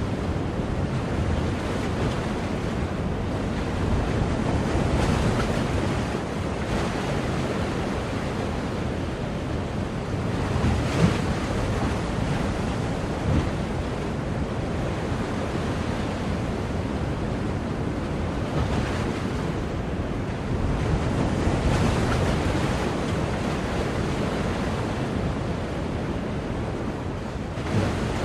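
Ocean waves breaking and washing on a shore, a steady rush of surf that swells and eases every few seconds, with wind buffeting the microphone.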